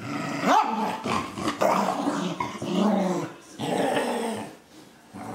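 A dog growling and giving a noisy, ferocious-sounding 'rah rah rah' in several bouts, with a quick rising yelp about half a second in. This is play growling during a game, not aggression.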